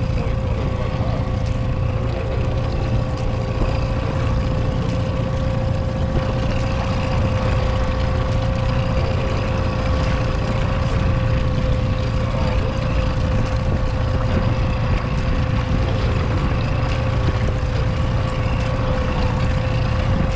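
Boat motor running steadily at trolling speed, a constant drone with a steady whine over it.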